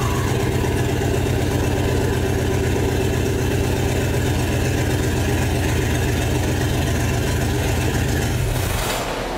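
Ford 302 small-block V8 running at a steady idle, exhausting through a Detroit Diesel 12.7 L semi-truck turbocharger on a homemade hot side, with even low firing pulses. Near the end the engine sound cuts off and leaves a steady hiss.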